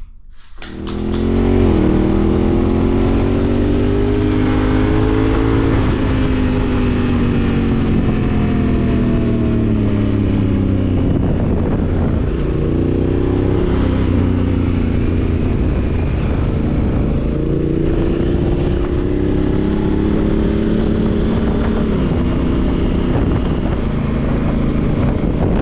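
2017 Honda Africa Twin's parallel-twin engine pulling under way, its pitch climbing through each gear and dropping sharply at each upshift, about four times.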